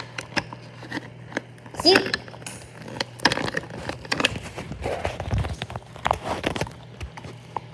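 Close handling noise from a hand puppet rubbed and bumped against the recording device: scattered clicks and knocks, then a dense stretch of rustling in the middle. A brief vocal squeak comes about two seconds in.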